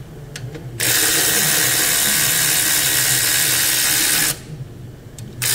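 Cordless electric ratchet running in two bursts, spinning out an alternator mounting bolt: a long run of about three and a half seconds starting about a second in, and a second run starting near the end.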